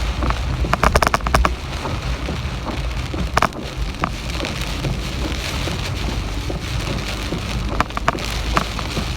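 Heavy typhoon rain falling steadily, with a low rumble underneath. Scattered sharp taps and rattles come in a cluster about a second in, once in the middle, and again near the end.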